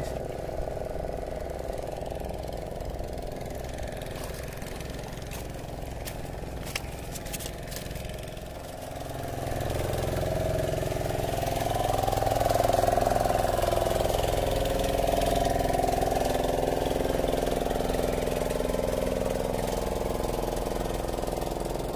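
An engine running steadily, growing louder about nine seconds in.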